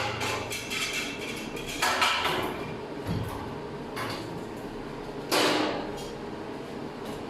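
A handful of separate metal knocks and clanks, some ringing briefly, from steel parts of a welding cart being handled and set in place; the clearest come about two and five seconds in.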